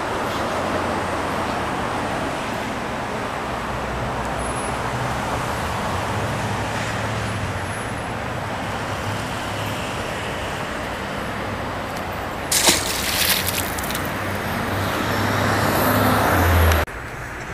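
Steady road traffic noise, growing louder near the end before cutting off suddenly. About twelve and a half seconds in comes a brief splash as the released peacock bass drops into the water.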